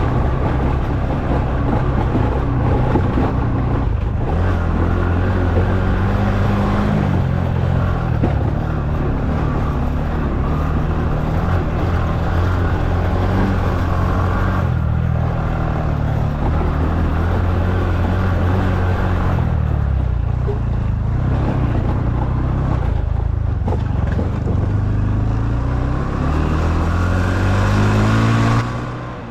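Honda Super Cub's single-cylinder four-stroke engine running under way, its pitch rising and falling with the throttle and climbing steadily over the last few seconds.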